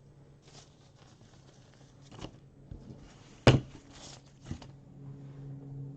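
Handling noise: scattered rustles and light knocks, with one sharp knock about three and a half seconds in, and a low steady hum starting near the end.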